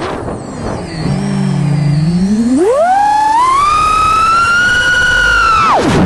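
Brushless motors of a 5-inch FPV freestyle quadcopter (Amax Inno F5P, 1950 KV on 6S) whining with the props. The pitch is low for the first couple of seconds, then climbs steeply to a high, held whine as the throttle is punched, and drops off sharply just before the end.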